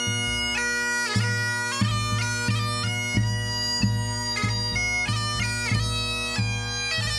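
Pipe band playing: bagpipes sounding a steady drone under a stepping chanter melody, with a bass drum beating evenly about three times every two seconds.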